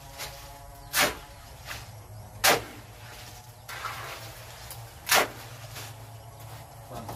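A series of sharp knocks at uneven spacing, three of them loud and several fainter, over a steady low hum.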